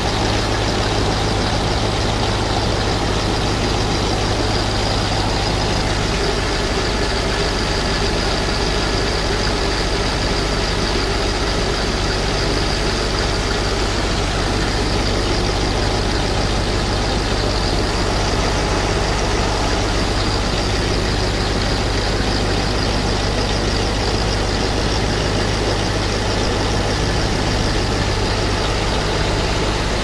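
Engine running steadily at idle, with linseed grain pouring from a tipped truck bin into a grain auger's hopper.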